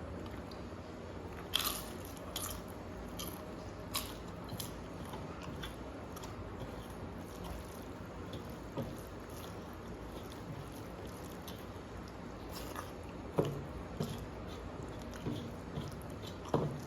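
A person eating a rice-and-curry meal close to the microphone: soft chewing with a handful of scattered sharp crunches and clicks over a steady background hiss.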